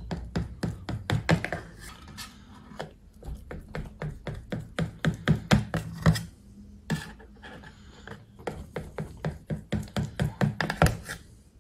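A kitchen knife cutting through soft semolina batter in a metal baking tray: quick, repeated taps and scrapes of the blade against the tray, with background music.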